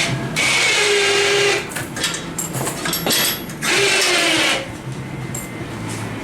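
A handheld power tool run in two bursts of about a second each, the second winding down in pitch as it stops.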